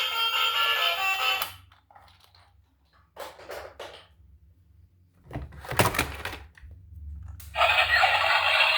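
Background music that stops about a second and a half in. In the quiet gap there are a few short thunks and rustles, the loudest about six seconds in, and the music comes back near the end.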